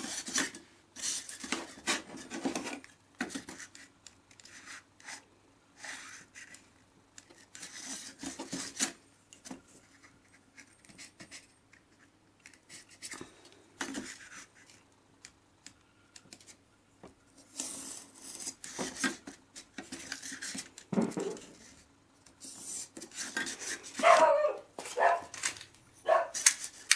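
Pen and ruler scraping and rubbing on a styrofoam sheet as lines are drawn and the foam is handled, in irregular bursts with pauses between them. Near the end come a few louder, squeaky strokes.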